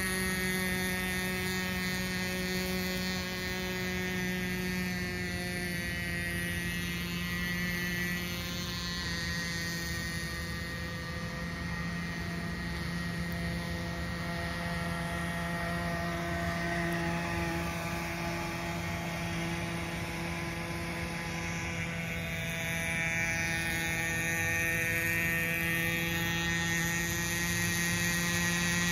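Nitro (glow-fuel) engine of a radio-controlled model boat running at high revs out on the water: a steady, high buzz that shifts slightly in pitch as the throttle changes.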